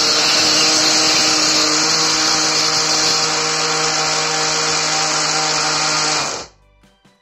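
Electric hand blender running steadily on its mini chopper bowl, chopping onion to a pulp; the motor cuts off suddenly about six seconds in, leaving faint background music.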